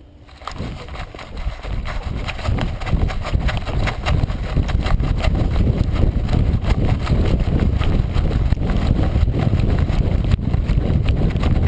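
Wind rushing over a GoPro strapped to a golden retriever's back as it runs full speed, with a steady rumble and rapid thumps and rattles from the dog's strides jolting the camera. It starts about half a second in and grows louder over the first few seconds.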